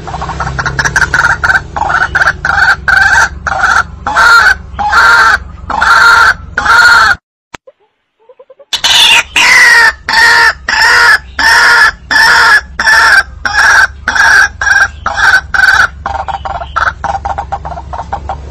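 White-breasted waterhen (ruak-ruak) calls played as a hunting lure: a loud, rapidly repeated croaking call. It breaks off for about a second and a half, about seven seconds in, then resumes, and turns softer near the end.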